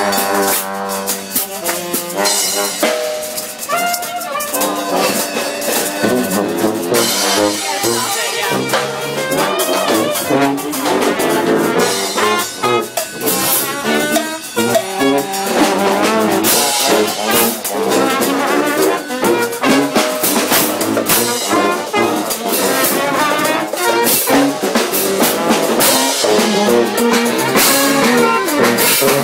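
Live street brass band playing an up-tempo number, with horns over drums and steady percussion hits throughout.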